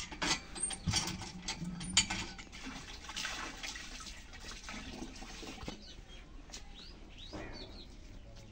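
Hand water pump being worked: the metal handle and pump knock and clank with each stroke while water gushes into a concrete trough. The pumping dies down after about four seconds.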